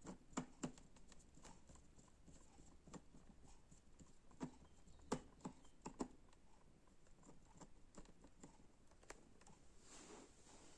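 Faint, irregular clicks and knocks, a few sharper than the rest, with a short soft rustle near the end.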